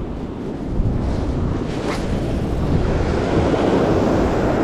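Surf breaking and washing up a sandy beach, with wind buffeting the microphone. The wash swells louder about three seconds in.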